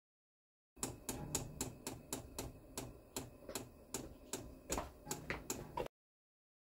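VEVOR 8 kW diesel air heater in its start-up phase: the fuel dosing pump ticks sharply about four times a second over a low hum from the blower fan. The sound comes in about a second in and cuts off abruptly near the end.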